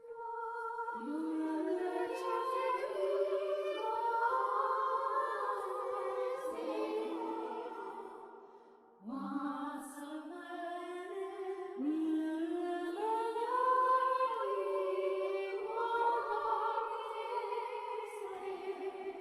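AI-generated wordless choir-like singing: held notes that glide upward into place, in two phrases with a short break about nine seconds in.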